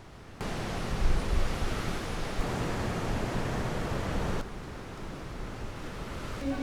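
Steady rushing noise of sea surf and wind, with wind rumbling on the microphone. It jumps louder about half a second in and drops back about four seconds in.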